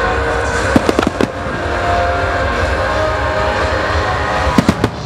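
Aerial firework shells bursting: a quick cluster of sharp bangs about a second in and another near the end, over a constant background din.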